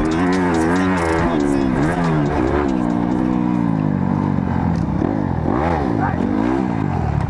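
Motocross bike engine revving hard, its pitch climbing and dropping again and again as the rider works the throttle and gears, with quicker rev blips in the second half.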